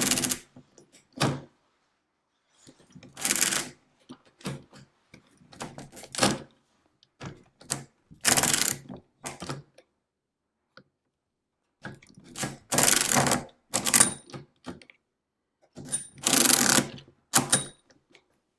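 1897 Dactyle pinwheel mechanical calculator being hand-cranked: a series of separate clattering turns, each under a second, with short pauses between, as the gears and number wheels turn over.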